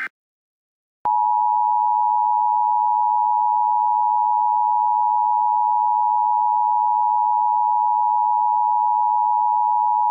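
Emergency Alert System attention tone: one loud, steady electronic tone that starts about a second in and holds without change.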